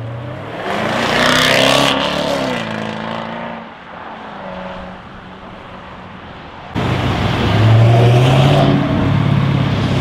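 Jaguar F-Type SVR's supercharged V8 accelerating hard, its pitch rising and then falling away as the car goes by. After a quieter stretch the sound jumps suddenly, about two-thirds of the way in, to another loud burst of V8 acceleration.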